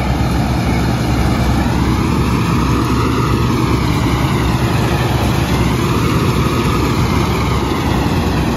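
Kartar 4000 combine harvester running at work cutting paddy: its engine and threshing machinery make a loud, steady drone.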